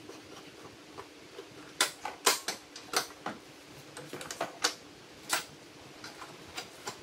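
Irregular clicks and knocks of a metal chop saw being handled and shifted on its stand, with a cluster of sharp knocks about two to three seconds in and a few more later.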